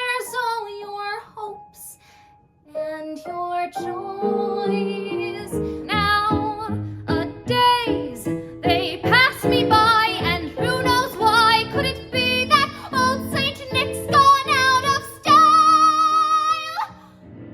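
A solo singer performing musical-theatre songs with instrumental accompaniment. After a short break a new song starts with fuller backing, and near the end the singer holds one long high note that cuts off sharply.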